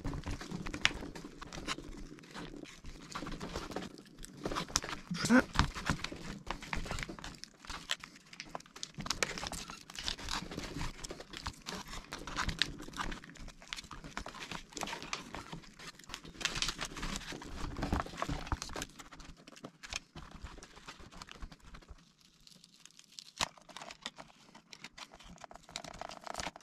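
Crinkling, crackling and scraping as the glued battery cells of a 2015 13-inch MacBook Pro Retina are pried up and peeled off their adhesive, with scattered sharp clicks. It goes quieter for a moment near the end.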